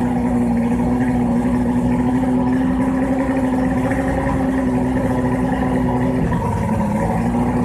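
1996 Venom 225 outboard engine running on flushing muffs, trimmed up, with a steady drone; about six seconds in its speed sags briefly and then picks back up. The owner reports that the engine sneezes when trimmed up and stops when trimmed down.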